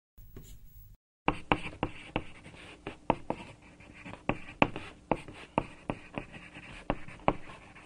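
Handwriting sounds: a writing tool scratching on a surface, with sharp, irregular taps a few times a second. A quieter stretch of scratching comes first, then a short break about a second in before the louder writing starts.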